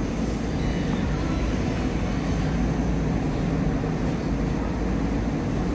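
Steady low rumble of a large store's background noise, even throughout with no distinct events.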